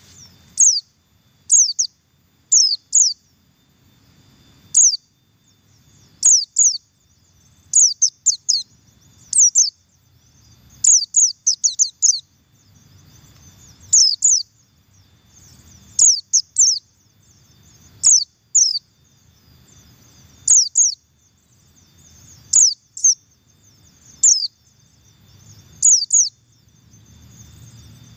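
White-eye (pleci buxtoni) giving its double call: short, high chirps that drop sharply in pitch, mostly in pairs or quick runs of three or four, repeated every second or two.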